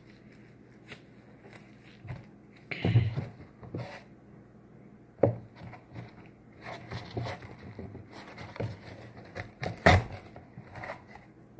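Irregular knocks, clatter and rustling of household containers being handled, as a baking soda container is picked up and checked for what is left in it; the loudest knocks come about three seconds in and near ten seconds.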